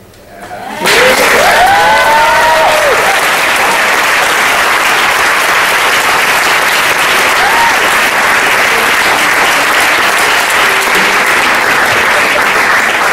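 Audience applauding, starting about a second in and holding steady, with a few whoops from the crowd in the first couple of seconds.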